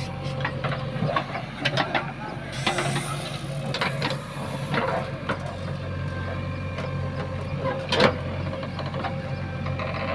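JCB 3DX backhoe loader's diesel engine running steadily under a scatter of short clanks and knocks, with one sharp knock about eight seconds in.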